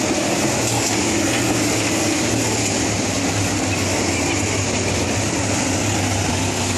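Race car engines running at speed as the field laps a dirt oval, heard as a steady, loud drone.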